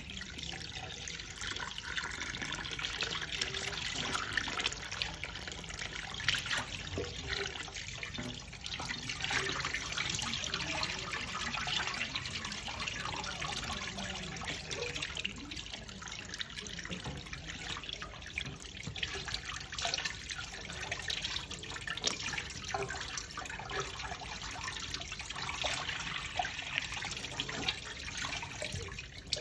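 Tap water running steadily into a kitchen sink, splashing as something is rinsed under it.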